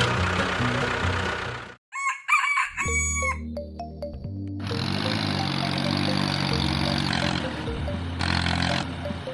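Background music breaks off for a moment, and about two seconds in a rooster crows once, a short pitched call. The music then resumes with a steady bass line.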